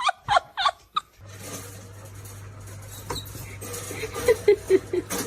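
A dog whimpering in a quick run of short, high cries over a steady low hum, after a moment of laughter that cuts off about a second in.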